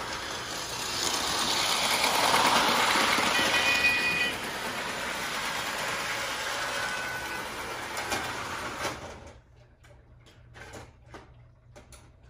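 Blue Thomas the Tank Engine toy train running along its rail track, the motor and wheels giving a steady whirring rattle that stops suddenly about nine seconds in; a few faint clicks follow.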